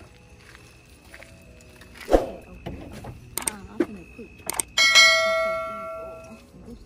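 A thump, then a couple of sharp clicks and a bright notification-bell ding that rings out and fades over about a second and a half: the sound effect of a YouTube subscribe-button and bell animation.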